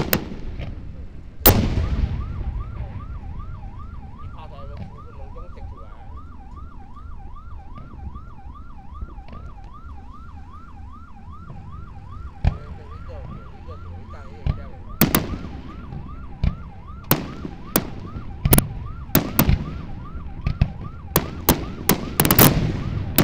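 Fireworks shells bursting with sharp bangs: one loud bang about a second and a half in, a single one around twelve seconds, then a quickening run of bursts from about fifteen seconds on. From just after the first bang, an electronic alarm wails rapidly up and down, a few cycles a second, under the bursts.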